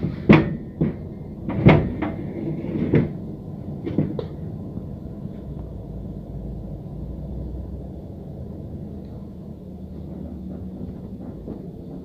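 Knocks and clunks of things being handled on a workbench, four of them in the first four seconds, then a low steady rumble.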